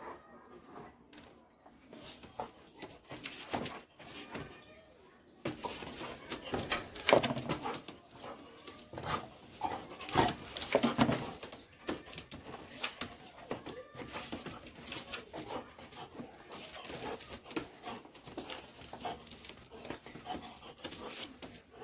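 A Doberman sniffing and snuffling at a shoe: many short, noisy sniffs and mouthing sounds, sparse at first and much busier from about five seconds in.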